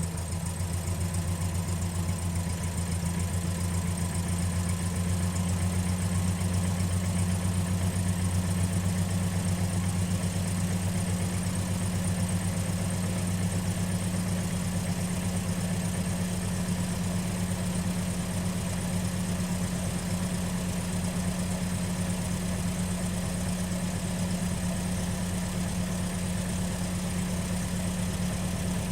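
Car engine idling steadily just after being started, heard from outside the car; the low hum eases slightly about halfway through.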